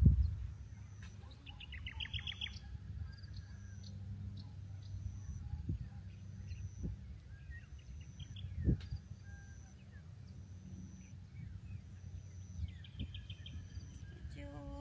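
Wild birds chirping, with a quick trill of rapid notes twice, a faint high note repeating about once a second, and a steady low rumble underneath. A thump right at the start is the loudest sound.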